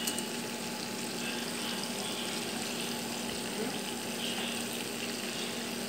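Chicken pieces deep-frying in a pan of hot oil: a steady sizzle of bubbling oil.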